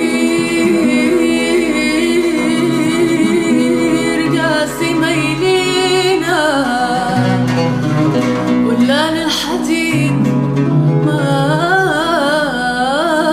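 A sad Arabic song: a solo voice sings a winding, ornamented melody over plucked string accompaniment.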